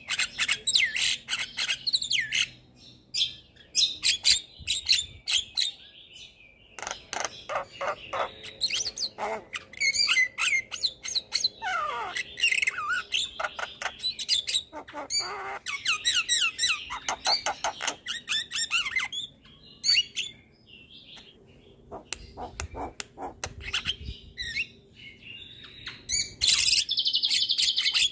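Javan myna singing a long, varied song of rapid clicks, chattering trills and whistles, broken by short pauses. About twelve seconds in it gives a falling whistle, and near the end a harsh, buzzing rasp held for over a second.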